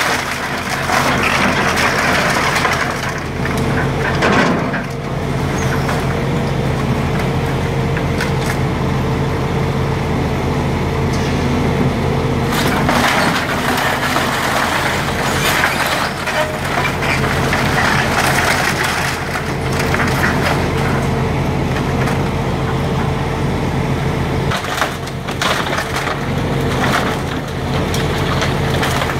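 Volvo excavator's diesel engine running steadily under load while its bucket rips through a wood-framed house: timber cracking and splintering, and debris crashing down in repeated bursts.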